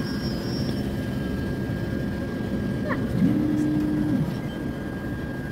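Automatic cotton candy vending machine running as it spins the sugar: a steady mechanical whirr with a thin high whine over it. About three seconds in, a motor tone rises, holds for about a second and drops away.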